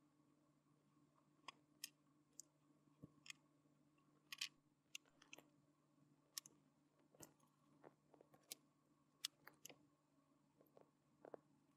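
Small plastic clicks and taps from a 1/6-scale action figure's head, face plate and swap-out hand parts being handled and pressed into place, irregular, a dozen or so, over a faint steady hum.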